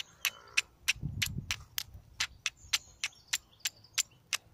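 A carbon steel striker being struck against a piece of flint, over and over, to throw sparks onto amadou: a fast run of sharp clicks, about four a second.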